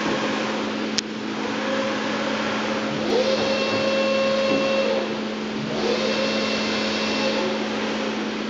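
Anayak VH 1800 CNC bed milling machine running under power with a steady hum. Twice a motor whine rises, holds for about a second and a half and falls away. A sharp click comes about a second in.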